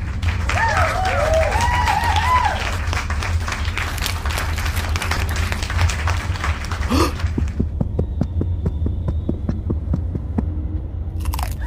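Busy city street ambience: a steady low rumble of traffic with a throbbing quality. Voice-like calls rise and fall in the first couple of seconds, and a rising call comes about seven seconds in. A run of regular light clicks follows in the second half.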